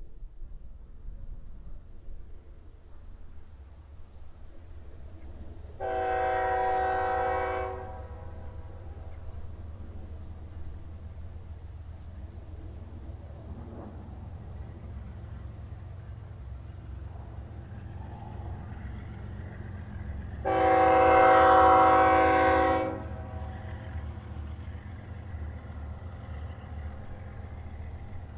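Diesel locomotives led by a GE ES44AC working hard under load as they start a long, heavy freight train rolling, with a steady low engine rumble. The locomotive's air horn sounds twice: a blast about six seconds in, and a longer, louder one about twenty seconds in. Insects chirp steadily in the background.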